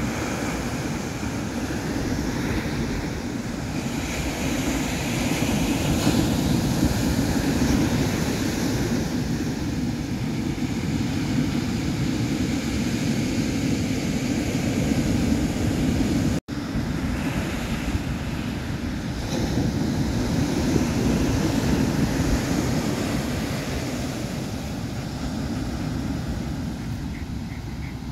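Ocean surf breaking and washing up the beach, a steady rush that swells and eases, with wind buffeting the microphone. The sound cuts out for an instant about halfway through.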